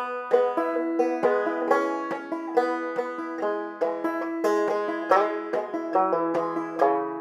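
Five-string banjo played clawhammer style: a phrase of quick plucked notes in the bum-ditty, drop-thumb rhythm, the last chord left ringing and fading near the end.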